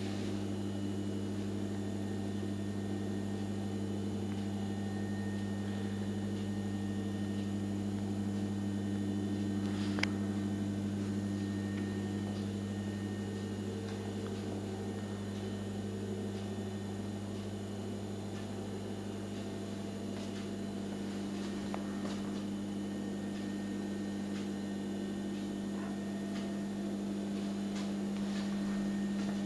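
Steady low electrical hum with a higher overtone, and a single light click about ten seconds in.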